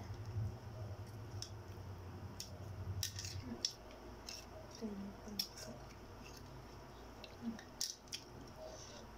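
Faint, irregular clicks and crackles of a balut's eggshell being cracked and peeled off by hand. A low hum underneath stops a few seconds in.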